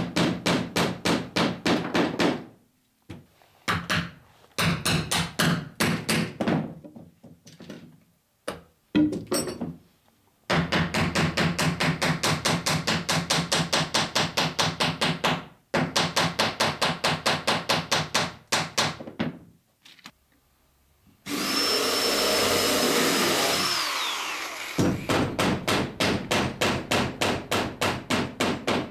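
Rapid, even hammer taps on copper boat nails in the planking and rib, about five a second, in several runs with short pauses between. Near the end a cordless drill runs for about three seconds, drilling a nail hole, its whine falling as it winds down.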